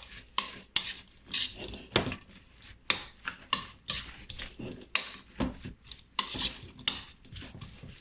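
A utensil scraping and clinking against a bowl as sliced vegetables coated in oil and spices are tossed together, in short irregular strokes roughly two a second.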